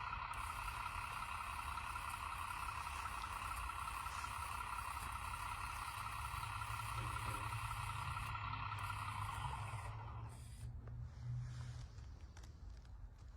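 Heavy machinery running: a low engine rumble with a steady high whine over it. The whine stops about ten seconds in and the sound drops to a quieter rumble.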